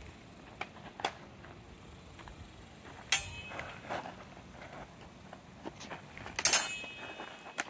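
Steel practice swords clashing during sparring: a sharp metallic clang with a short ring about three seconds in and a louder one about six and a half seconds in, with lighter ticks of blade contact between.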